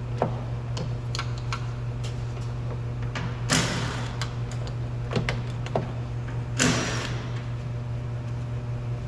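Flathead screwdriver prying at a car door handle's cover: small scattered clicks and scrapes, with two louder scraping rasps, one about a third of the way in and one about two-thirds in, over a steady low hum.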